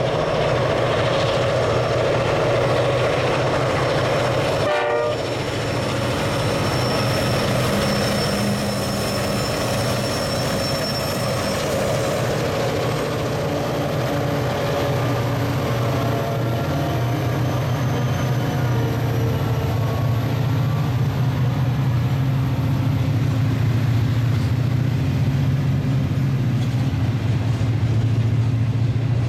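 Loaded grain train climbing a grade: four diesel locomotives, EMD streamliners among them, pull hard as they pass, then the long line of loaded grain hopper wagons rolls by with a steady rumble of wheels on rail.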